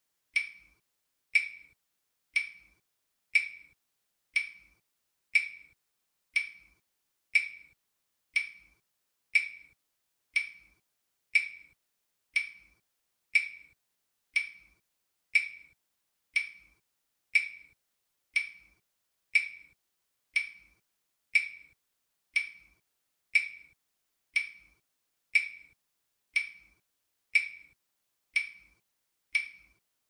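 Countdown timer sound effect: a short, sharp tick once every second, each one dying away quickly, keeping time with the digits counting down.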